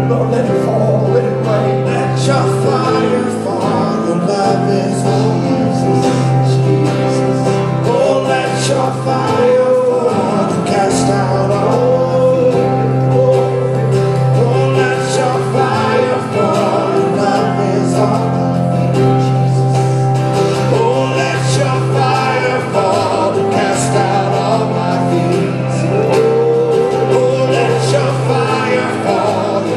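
Live church worship band playing, with voices singing over sustained keyboard chords and drums.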